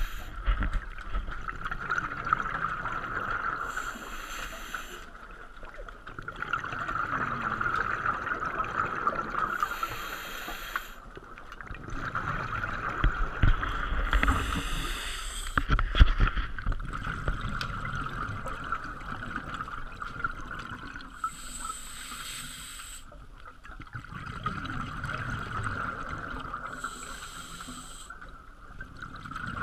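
Scuba diver breathing through a regulator underwater: slow, even cycles of a hissing inhale through the demand valve followed by a burst of exhaled bubbles, about five breaths.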